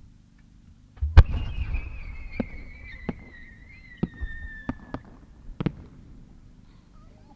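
Large Japanese aerial firework shell fired with a thud about a second in, then a whistle from its rising tail attachment that slowly falls in pitch over about four seconds. Five sharp cracks from small bursts break out along the climbing trail, and the shell's loud main burst bang hits at the very end.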